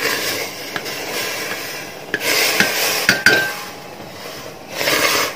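Rice flour poured into water boiling in a steel pot, then stirred with a wooden spatula that scrapes and knocks against the pot several times, with a brief metallic clink about three seconds in. This is the flour being scalded to make dough.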